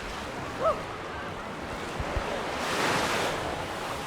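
Mediterranean surf washing onto the beach, with one wave breaking and surging loudest about three seconds in. A brief pitched cry cuts through about half a second in.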